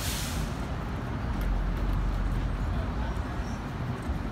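R42 subway train standing in the station, a steady low rumble, with a short hiss right at the beginning.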